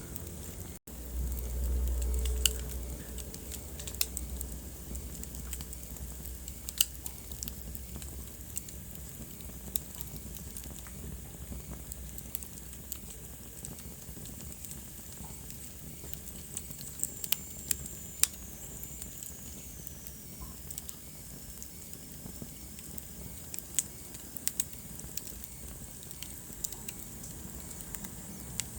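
Wood fire burning in a fireplace: a soft steady hiss with irregular sharp crackles and pops. About a second in, a low rumble lasts a few seconds, and later a thin high whistle slowly falls in pitch.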